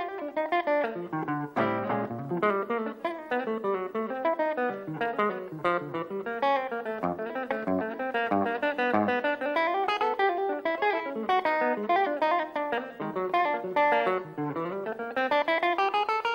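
Solo jazz guitar on a hollow-body archtop electric guitar: fast single-note bebop lines that sweep up and down the neck, with chords and bass notes struck between the runs.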